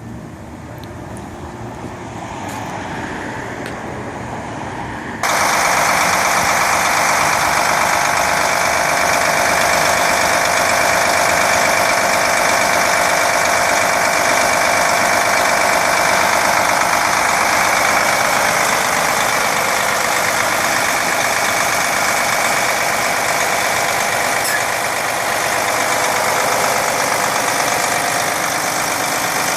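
Prevost X3-45 coach's diesel engine running steadily at idle. About five seconds in the sound abruptly becomes much louder, with a steady whine over the engine noise that eases slightly about two-thirds of the way through.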